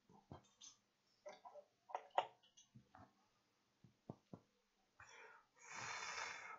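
Small clicks and taps of hand tools being handled and set down at a repair bench, followed about five seconds in by a rustling hiss lasting a second or so.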